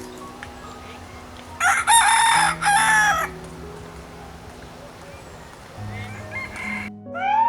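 A rooster crowing once, a loud call about a second and a half long starting near two seconds in, over steady low sustained tones.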